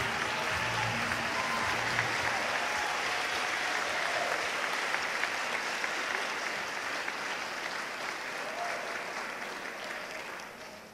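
Audience applauding, with the last notes of the music still audible in the first two seconds; the applause dies away near the end.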